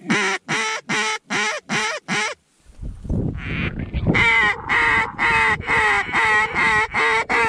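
Mallard duck call blown by a hunter to draw in ducks. It gives a run of about six evenly spaced quacks, then after a short pause a second, longer run of about eight quacks at a steady two to three a second.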